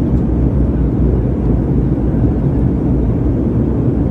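Steady low rumble of a propeller airliner heard from inside the passenger cabin: engine and airframe noise with no distinct knocks.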